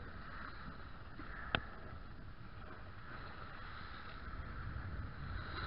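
Low, steady outdoor background noise with one sharp click about a second and a half in.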